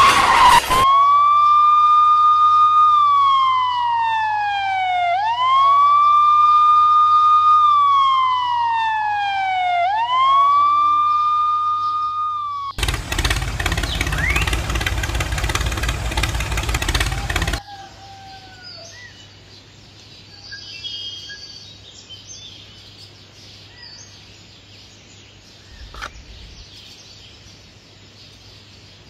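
A siren wailing through three cycles, each holding a high note, sliding down and sweeping quickly back up. It gives way to a loud rough rushing noise lasting about five seconds, then faint chirping birds and insects.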